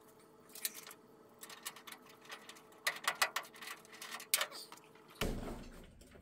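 Sharp metallic clicks and light rattles from a steel door panel and tools being handled, with a quick run of them about three seconds in, then a dull thump about five seconds in that fades away.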